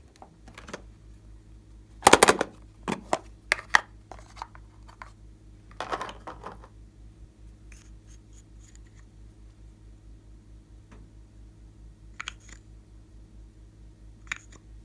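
Irregular short crackly scrapes and clicks from hands working with makeup and slime supplies, loudest about two seconds in and again around six seconds, over a steady low hum.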